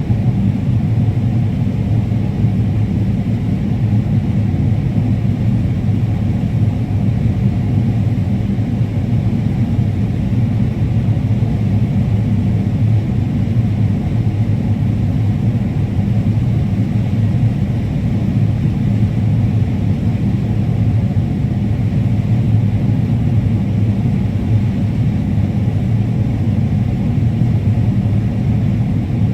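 Combine harvester running steadily while cutting corn: a continuous low engine drone with an even hum.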